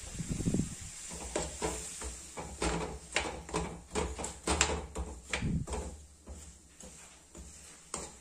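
Steel spoon stirring lumps of jaggery in a steel kadai, scraping and knocking against the pan in irregular clinks as the jaggery is worked with a little water to melt it.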